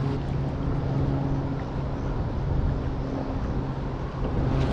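Steady low mechanical hum over a constant rumbling noise.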